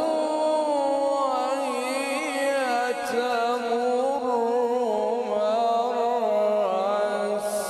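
A man's voice in melodic Quran recitation (tilawat) through a microphone and loudspeakers: long held, chant-like phrases with a wavering, ornamented pitch.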